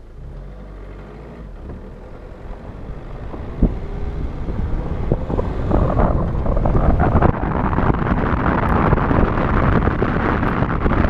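Ford Fiesta driving on a snowy road, heard from a microphone mounted outside the car: a low engine drone at first, then wind rushing over the microphone and road noise build over the first six seconds as the car gathers speed. There is a single sharp knock about three and a half seconds in.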